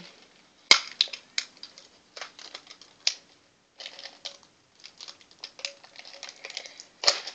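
Candy packaging being worked open by hand: irregular crinkling and sharp clicks of plastic, with a louder snap about a second in and another near the end.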